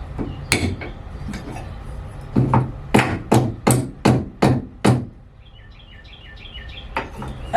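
Hammer blows: a single strike, then a quick run of about seven strikes roughly three a second, then one more near the end.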